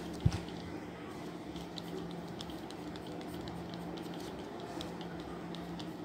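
Pencil drawing short strokes on paper: faint scratchy ticks over a steady low hum, with a single knock about a quarter second in.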